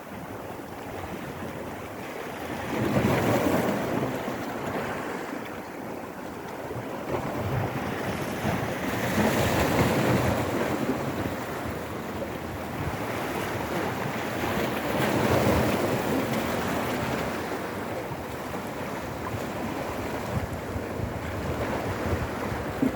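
Sea waves surging onto a rocky, pebbly shore and splashing up against the rocks. Three big surges swell and fall back, roughly six seconds apart.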